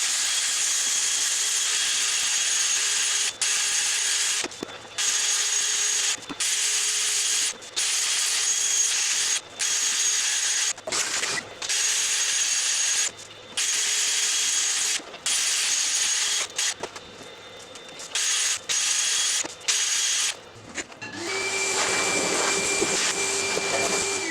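Electric power tool working wood on a yew platter, a hissing run with a steady high whine that starts and stops abruptly many times in short bursts. Near the end a different motor with a lower steady tone runs for a few seconds.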